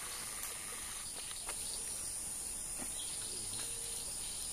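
Steady high-pitched drone of insects, unbroken and even in level.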